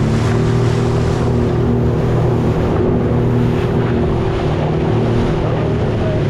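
A small motorboat's engine running steadily under way, with wind and splashing water noise over it.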